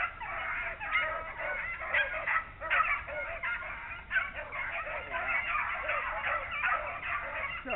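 A pack of beagles baying together on a rabbit's trail, many voices overlapping without a break: the hounds are running a swamp rabbit.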